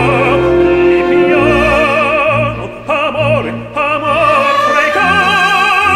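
Operatic aria sung in Italian: a high voice holding long notes with wide vibrato over orchestral accompaniment, with a short breath about three seconds in.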